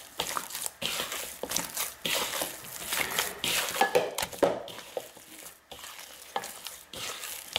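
Hand beating tamale masa, corn dough worked with oil, in a bowl, with irregular strokes as the hand pushes and squeezes through the dough.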